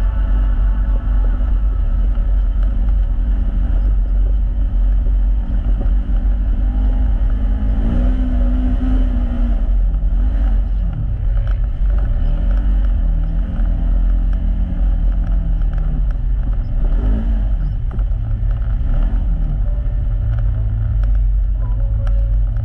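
Polaris RZR side-by-side's engine running under throttle over a steady low rumble, its pitch rising and falling several times as the throttle is worked.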